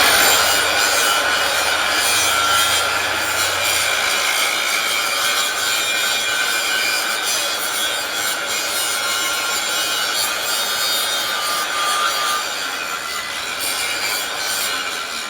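Metal being ground by a power tool: a steady, harsh rasping hiss with a faint high whine running through it.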